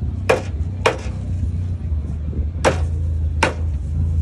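A machete chopping fish on a wooden chopping board: four sharp chops, two about half a second apart near the start, then two more close together after a pause of nearly two seconds.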